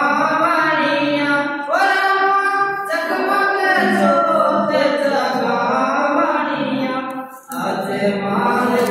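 A man's solo voice singing a devotional song for Ramsa Pir without instruments, holding long notes with slow glides in pitch. The singing breaks off briefly about seven seconds in and then resumes.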